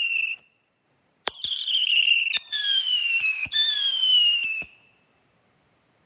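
Whistling fireworks: a run of shrill whistles, each about a second long and falling in pitch, with a sharp crack before each one. After the last whistle and crack, the sound cuts off suddenly.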